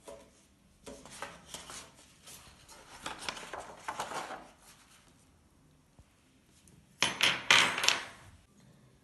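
A sheet of paper rustling and a metal braille slate and frame knocking and rattling on a wooden table as the paper is handled. The loudest clatter comes near the end.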